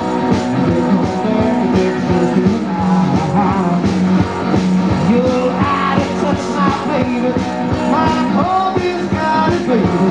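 Garage rock band playing live, with a man singing into the microphone over drums.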